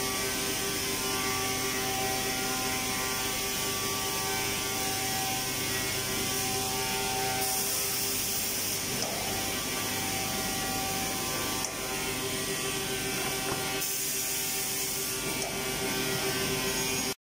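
Woodworking production-line machinery running in a factory hall: steady mechanical noise with a constant mid-pitched whine.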